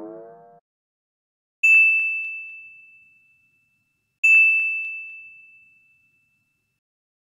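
Two identical bright ding chimes, used as title-card sound effects, each struck once and ringing away over about a second and a half. They come about two and a half seconds apart.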